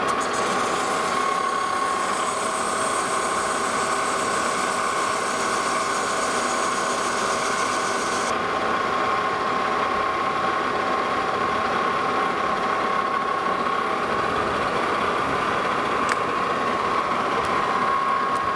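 Metal lathe running with a steady whine while facing off a ductile cast iron billet. A higher hiss over it stops suddenly about eight seconds in.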